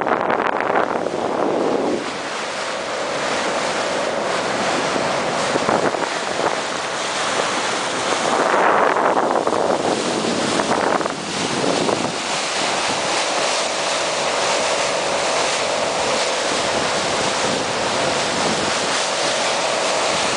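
Wind buffeting the microphone and water rushing past the hull of a motor cruiser running at speed, with gusts louder around the start and again about halfway through. A faint steady hum from its twin rebuilt Ford 427 V8 engines at 3500 RPM runs underneath, plainest in the second half.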